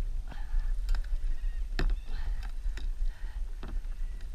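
Wind rumbling on an action camera's microphone on a sea kayak, with water sloshing against the hull. A handful of sharp knocks come at irregular intervals.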